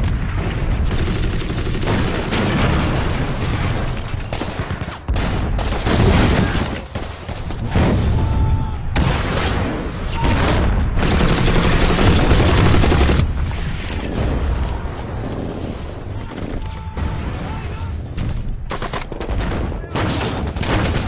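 Fireworks going off in rapid, irregular crackling volleys of bangs, dense and loud throughout.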